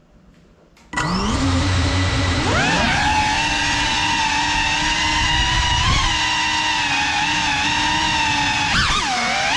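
FPV quadcopter's brushless motors and propellers spinning up about a second in, the whine rising in pitch, then holding steady with small dips and rises as the throttle changes, heard from the camera mounted on the drone.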